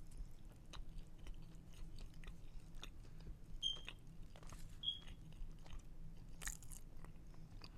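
Close-miked chewing of food, with irregular wet mouth clicks and smacks and a louder cluster of clicks about six and a half seconds in.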